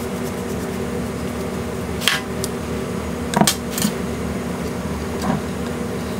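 A few short knocks and clicks of kitchen utensils being handled during food prep: one about two seconds in, a quick cluster around three and a half seconds, and a softer one near the end, over a steady appliance-like hum.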